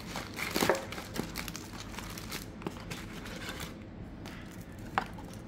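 Trading-card packs and their cardboard box being handled: irregular crinkling and rustling, with a louder rustle about half a second in and a sharp click near the end.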